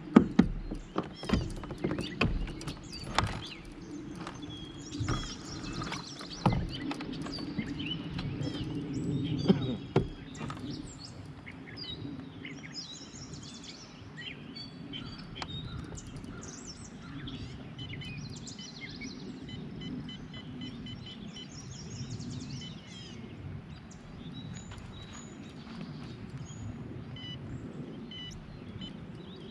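Several hard knocks and thumps over the first ten seconds. Then birds chirping and singing over a steady low rush of moving creek water.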